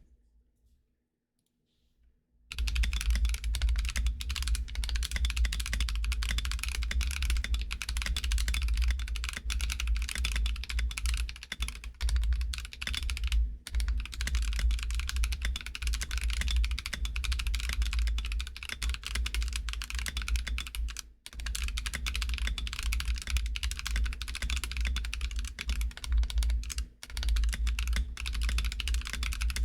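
Fast, continuous typing on a GK64x mechanical keyboard with Akko CS Lavender switches on an aluminum plate, with lubed switches and stabilizers and a t-shirt stuffed into the case as dampening. The typing starts after about two and a half seconds of near silence and stops briefly a few times.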